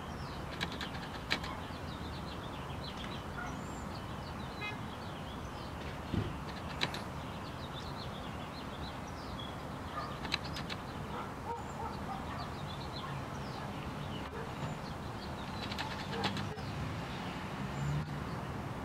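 Small birds chirping and twittering, many short high calls over a steady low background rumble, with a handful of short clicks scattered through.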